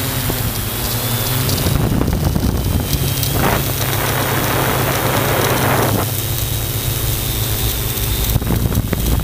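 Steady hum of an aircraft's motors and propellers, with wind rushing over the microphone; a stronger gust of wind noise swells about three seconds in and eases about six seconds in.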